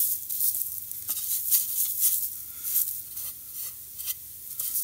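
Fingers rubbing wet clay into a gap in the edge of a broken glazed ceramic plate, working it in: a run of short, irregular, hissy wet rubbing strokes.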